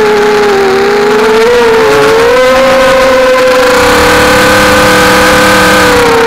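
Brushless motors and propellers of a 250-size FPV racing quadcopter whining steadily in flight, heard close up from its onboard camera. The pitch sags slightly about a second in, climbs back a little after two seconds as the throttle comes up, and eases off near the end.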